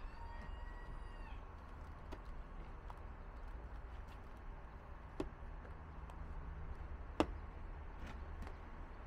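A rooster crowing briefly at the start, one pitched call that drops away at its end, over a steady low rumble. Two sharp knocks come about five and seven seconds in, the second the loudest sound.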